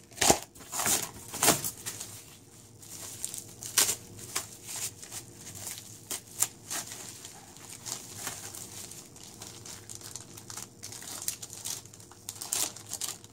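Thin plastic packaging bags crinkling and rustling in the hands as accessories are pulled out and unwrapped: irregular sharp crackles, loudest in the first few seconds.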